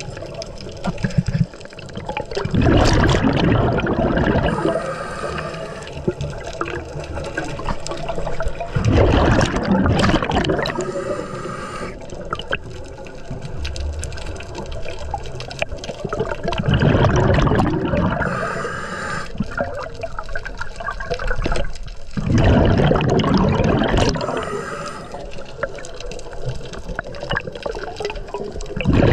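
Underwater scuba breathing through a regulator: a loud rush of exhaled bubbles lasting about two seconds comes roughly every six to seven seconds, with quieter hissing stretches between.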